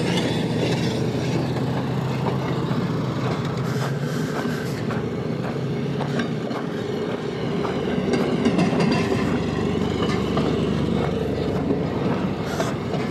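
Railroad motor cars (track speeders) rolling along the rails, their small engines running steadily and their wheels clicking over the rail joints.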